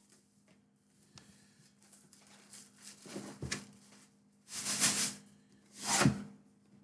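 A cardboard Elite Trainer Box being handled and opened: a few faint taps, then three short scraping swishes of cardboard, about three, four and a half and six seconds in.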